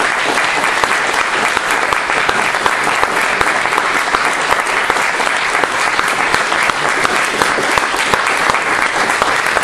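Audience applauding steadily, a dense clatter of many hands clapping at the end of a stage performance.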